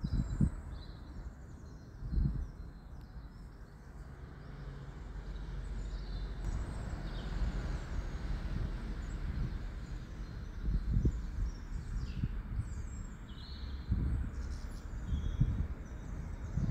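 Steady low background rumble with faint bird chirps now and then, and a few soft low knocks.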